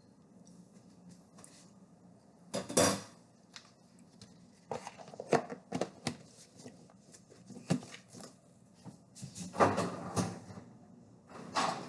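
Irregular clatters, knocks and short scrapes of a spoon against a bowl and ice cream tub, with the loudest clusters about a quarter of the way in, near the middle and near the end.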